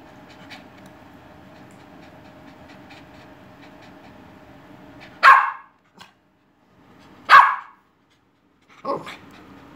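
Cavalier King Charles Spaniel barking: two loud single barks about two seconds apart a little past the middle, then a softer, shorter bark near the end. Between the barks the dog pants, over a steady hum.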